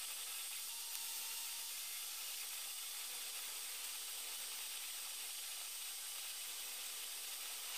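Creality Ender 3 3D printer running mid-print: a steady, even hiss of its cooling fans.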